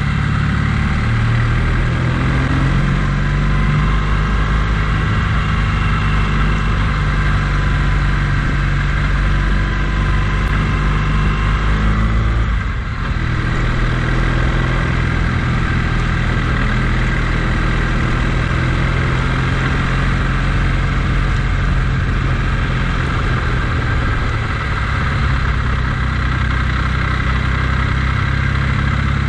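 Vehicle engine running steadily under way, with a steady hiss over it; the sound briefly drops about twelve seconds in, then picks up again.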